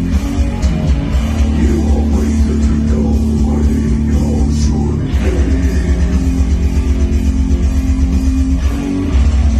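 Heavy rock music with electric guitar and drums. The low end turns into a fast, even pulse about halfway through.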